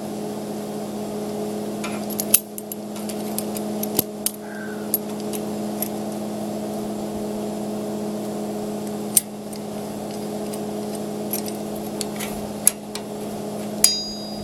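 Sharp metallic clinks every few seconds as locking pliers knock against the steel tines of a spring-tooth harrow, one near the end ringing briefly, over a steady machine hum.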